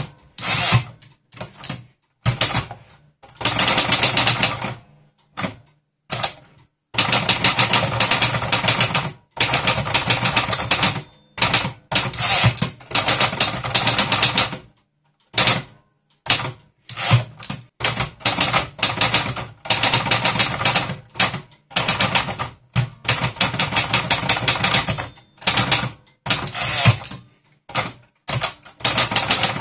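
Typewriter keys being struck in quick runs of clicks, broken by many short, abrupt breaks.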